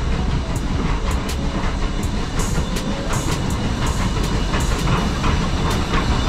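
Small saddle-tank steam locomotive running out of a tunnel and along the platform, with a low rumble and a string of sharp clicks from its wheels and motion.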